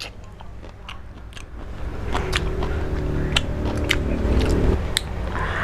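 Close-miked eating sounds: chewing and biting with scattered sharp, wet mouth clicks, over a low steady background hum. A steady tone joins in at about two seconds and stops shortly before the end.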